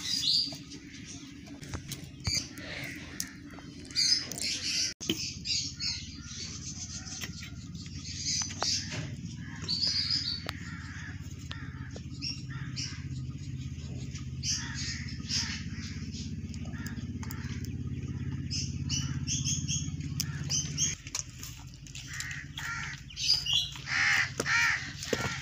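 Crows cawing and smaller birds chirping on and off, over a steady low hum that cuts off about three-quarters of the way through.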